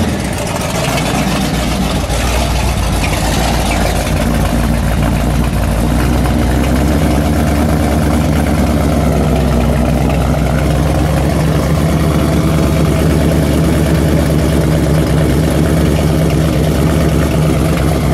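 The 427 cubic-inch Chevrolet big-block V8 of a 1969 Camaro pro street car idling steadily and loudly.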